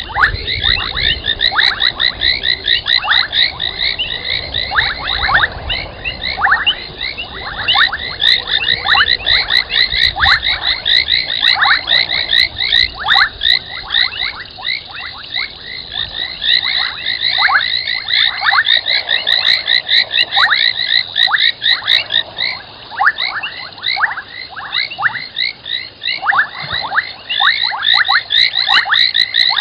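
Dense night chorus of frogs: many rapid, overlapping short high-pitched calls, a lot of them sweeping quickly downward, repeating without pause.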